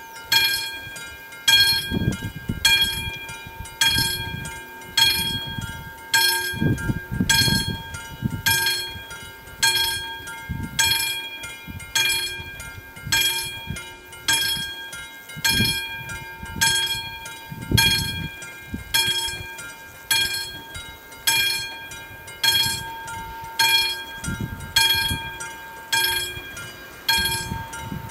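AŽD 71 level-crossing warning bell striking steadily, about three strikes every two seconds, each strike ringing and fading: the crossing is active, warning of an approaching train.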